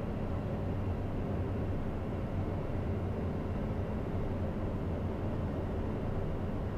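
Steady cockpit noise of a Cessna Citation CJ3+ business jet on final approach in landing configuration, gear down and flaps at 35: a constant rush of airflow over a low steady hum, unchanging throughout.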